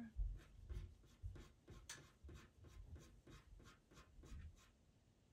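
Pastel pencil scratching on Pastelmat paper in quick short strokes, about four a second, that fade away near the end.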